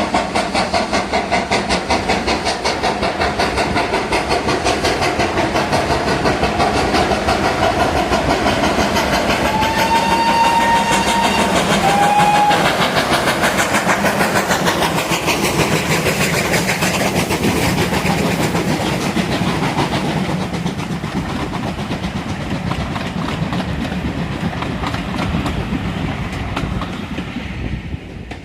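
Steam locomotive working past with a rapid, regular beat from its exhaust and wheels, giving two short whistle blasts about ten and twelve seconds in. It grows loudest around the whistles, then slowly fades as it draws away.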